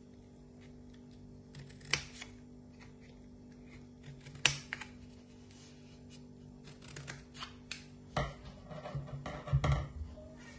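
Scissors snipping through a cardboard kitchen-paper tube: a few sharp separate cuts, the loudest about four and a half seconds in, then a quick run of snips. Near the end, dull knocks as the tube is pressed and handled on the table.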